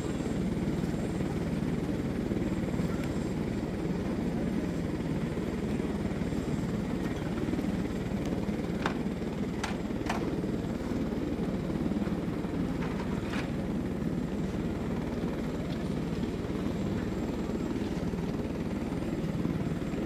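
Tour helicopter in flight, a steady unchanging drone of engine and rotor noise, with a few faint clicks about halfway through.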